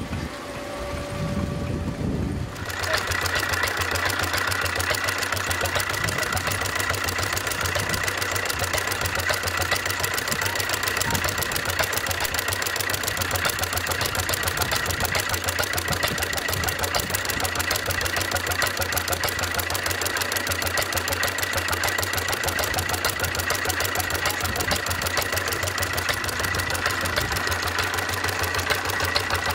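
A tractor engine idles for about the first two and a half seconds, then a vintage hopper-cooled single-cylinder stationary engine runs with a fast, even clatter and a steady high whine.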